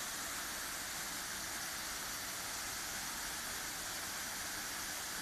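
Steady rushing hiss that holds at an even level throughout.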